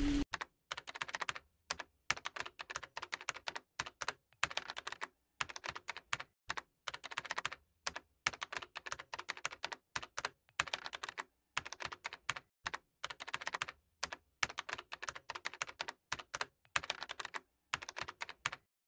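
Computer keyboard typing sound effect: quick runs of key clicks broken by short pauses, stopping just before the end.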